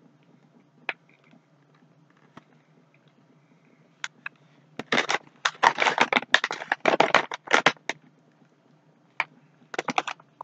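Plastic donut bag crinkling as it is opened and handled, in a dense run of rustles from about halfway through that lasts some three seconds, with a few more short rustles near the end.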